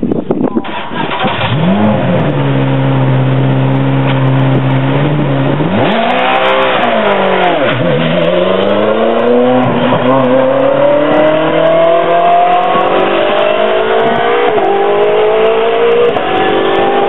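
Ferrari 458 GT race car engine fires up about two seconds in and idles steadily. It is then revved sharply and drops back, and rises steadily in pitch as the car pulls away, with two short dips in pitch near the end.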